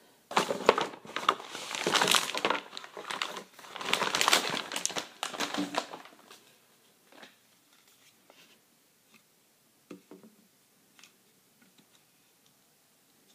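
Plastic packaging crinkling and rustling as it is handled, for about six seconds, followed by a few light, scattered plastic taps and clicks.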